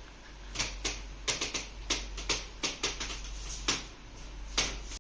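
A quick, irregular series of about a dozen sharp clicks and taps over about four seconds, over a low steady hum.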